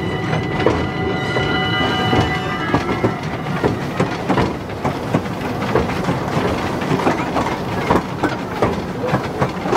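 Park steam train running, its carriage wheels clicking and clattering over the rail joints. A high steady tone sounds over it for the first three seconds or so, then stops.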